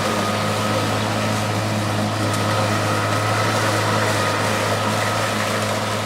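Kobalt 40-volt brushless cordless electric garden tool running steadily during a run test, a constant motor hum with a thin high whine over it.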